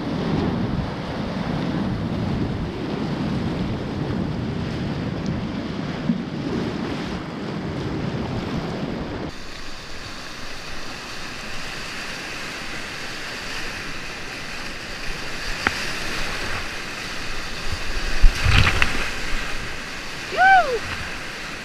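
Whitewater rapids at high release flow rushing and breaking around a kayak, heard close up from the boat: a deep, muffled rush for the first half, then after an abrupt change a brighter hiss of churning water. Near the end come a few sharp splashing slaps and a short high-pitched cry.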